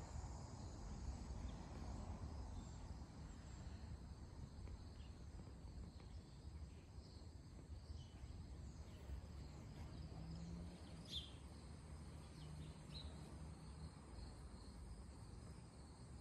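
Faint steady trilling of crickets over a low outdoor rumble, with a couple of short bird chirps about eleven seconds in.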